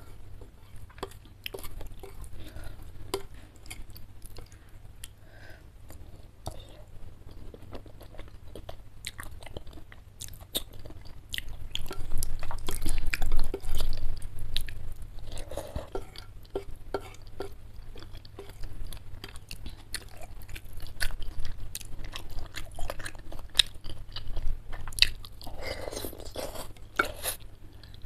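Close-miked chewing of spicy chicken noodles and chicken meatballs: a steady run of small wet mouth clicks. It gets louder around the middle.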